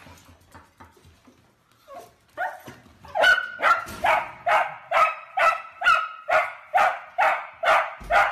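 Long-haired dachshund barking repeatedly in a steady run of loud, sharp barks, about two a second. The barks begin a couple of seconds in, after a quiet stretch with a few faint taps.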